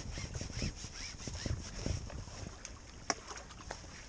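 Choppy water lapping and splashing at the bank, with wind on the microphone and light irregular knocks and rubbing as a landing net with a fish in it is drawn in on its pole.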